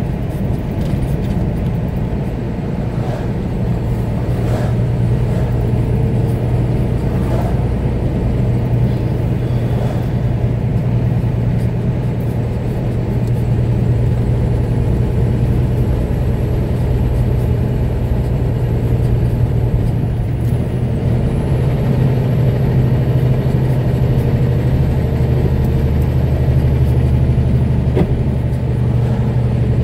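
Steady engine and tyre noise of a vehicle driving along a paved road, heard from inside the vehicle: a continuous low drone with road hiss above it.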